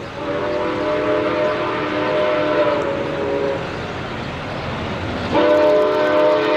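Steam locomotive Santa Fe 3751's chime whistle blowing two long blasts: the first fades out about halfway through, and the second, louder one starts suddenly about five seconds in and is still sounding at the end. Each blast is a chord of several notes sounding together.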